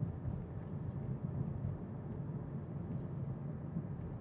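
Steady low road and tyre rumble inside an electric car's cabin while driving, with no engine sound.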